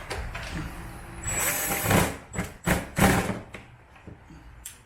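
Several short scraping, rustling noises as parts are handled, loudest about two and three seconds in.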